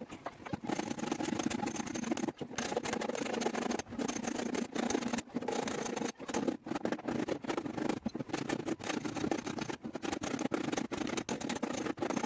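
Rapid, irregular tapping and knocking on a car's sheet-metal body panel during dent repair work.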